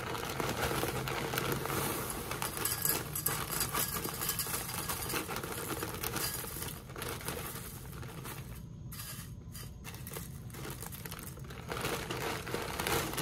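Plastic cereal bag crinkling as Great Value Crunchy Honey Oats flakes and clusters pour and patter into a bowl. It is busy for the first several seconds, thins out past the middle, and picks up again near the end.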